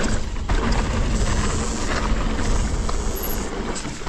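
Wind rushing over an action camera's microphone, with the rumble of mountain bike tyres rolling over a gravel trail.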